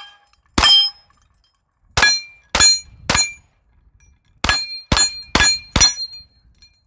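Pistol-caliber carbine fired eight times in quick strings, about half a second apart at their quickest. Each shot is followed by the ring of a hit steel plate target.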